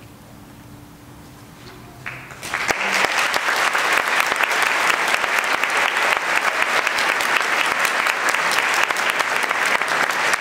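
A brief hush, then audience applause starts about two and a half seconds in and carries on as steady, dense clapping.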